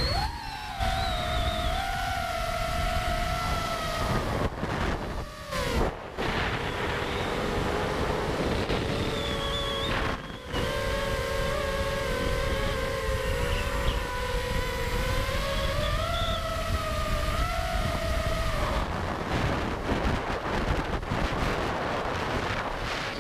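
FPV quadcopter's four brushless motors (DYS Samguk 2207 2600KV on 4S) whining through 5045 propellers, the pitch rising and falling with throttle, over wind rushing on the onboard camera's microphone. The whine drops out briefly a few times, around five, six and ten seconds in, as the throttle is cut.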